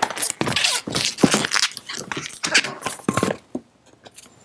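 A freshly inflated latex 260 twisting balloon squeaking and rubbing against the hands as it is handled, in irregular short strokes with a few brief squeaks. It goes quieter about three and a half seconds in.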